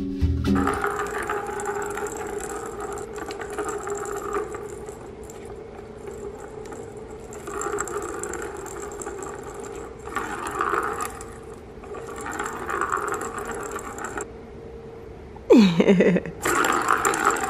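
A cat playing in a circular scratcher track toy, scraping the corrugated cardboard pad and knocking the track in repeated short bouts of scratching and rattling over a steady hum. Near the end the cat gives one short, loud meow that falls steeply in pitch.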